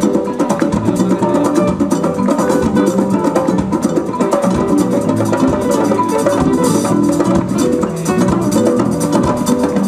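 A live band playing a medium-tempo dance groove: electric guitars, drum kit and hand percussion, with keyboard.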